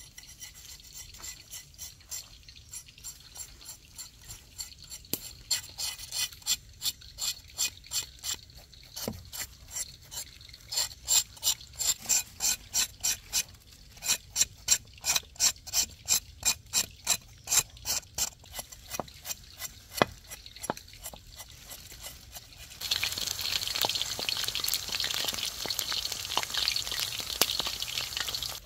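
Rhythmic scraping strokes, about three a second, louder through the middle. They give way near the end to a denser, continuous scraping that stops suddenly.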